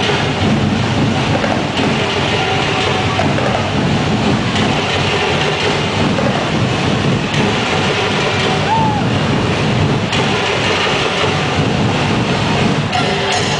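A festival tribe's drum ensemble playing for the dancers, mixed with the noise of a large crowd, heard as a loud, steady din without clear beats or tones.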